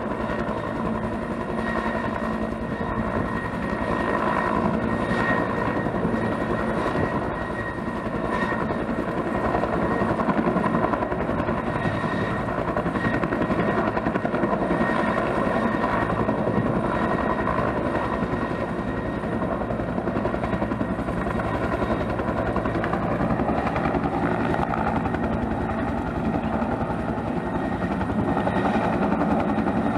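Bell 212 twin-turbine helicopter running: the two-blade main rotor beats steadily over a constant turbine whine.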